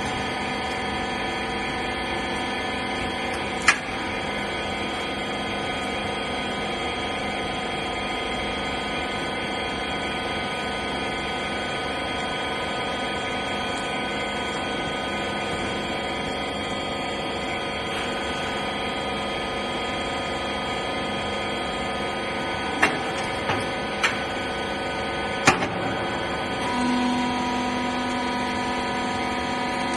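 A 10 kg wiper baler machine running, its motor giving a steady hum with several constant tones. There is one sharp click about four seconds in and a few more clicks about three-quarters of the way through. Shortly after those clicks, a further low steady tone joins in.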